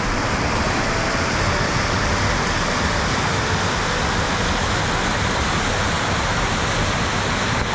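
Creek waterfall: white water pouring down over rock ledges in a steady, loud rush of water close by.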